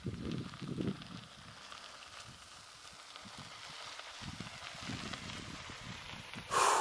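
Bicycle tyres crunching and hissing on a gravel road as a loaded Salsa Fargo bikepacking bike rolls toward the microphone, growing louder, with a short loud rush near the end as it passes close by. A few low rumbles come in the first second.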